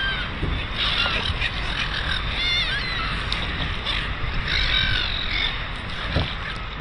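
A flock of gulls calling: short, arching squealing calls, several overlapping at times, over a steady low rumble.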